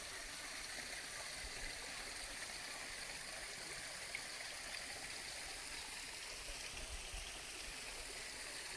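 Steady rush of running water from a mountain stream, an even hiss that neither rises nor falls, with a few faint low thumps and one small click about four seconds in.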